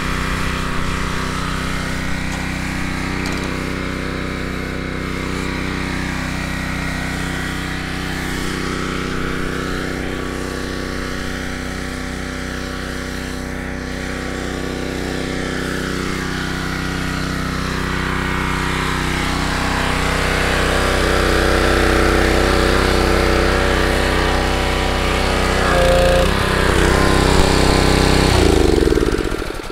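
A gas pressure washer's 6.5-horsepower Predator engine runs steadily, with water spray hissing from the wand. It is louder in the last few seconds and cuts off abruptly at the very end.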